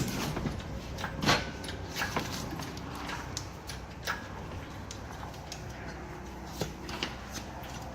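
Scattered knocks and clatters, the loudest about a second in, over a steady low hum.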